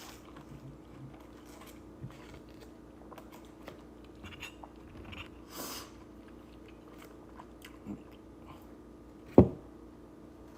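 A person chewing a mouthful of mandarin orange close to the microphone, with small scattered clicks, over a steady low hum. A single loud thump comes about nine seconds in, the loudest sound.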